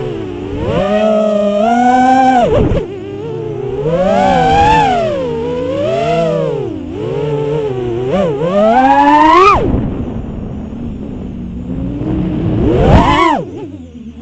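Six-inch FPV quadcopter's four brushless motors (Emax ECO II 2207 1900KV) spinning tri-blade props, whining with a pitch that rises and falls in quick swoops as the throttle is worked. About nine and a half seconds in, the throttle cuts sharply and the whine falls away to a quieter coast, then it punches up steeply again near the end.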